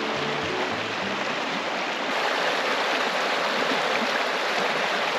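Shallow river flowing over rocks: a steady rush of running water. Background music fades out in the first second or two.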